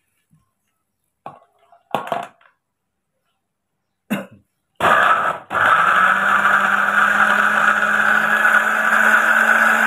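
Miyako countertop blender switched on, blending chopped carrots and water into juice. It starts about five seconds in, falters for a moment, then runs steadily with a constant motor hum.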